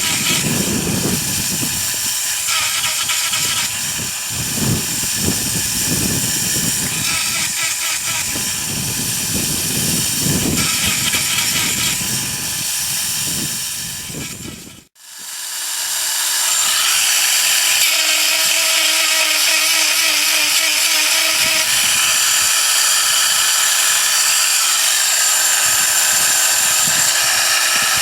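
Granberg G1012XT electric chain grinder running, its grinding wheel dressing the teeth of a chainsaw ripping chain in repeated short strokes for about the first half. Midway the sound cuts out for a moment, then the grinder runs on steadily with a high hiss and an even tone.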